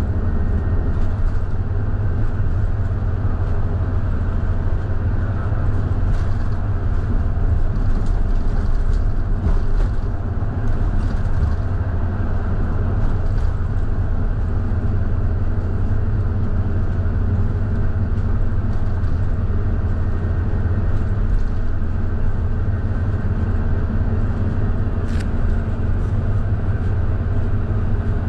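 Scania K320IB bus running steadily on the road: an even low engine drone with road noise, and a few faint clicks or rattles now and then.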